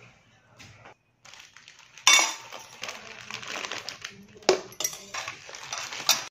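A steel spatula scraping fried onions out of a pan and clinking on steel plates and bowls. A sharp clatter comes about two seconds in, then scraping and rattling with a few more sharp clinks.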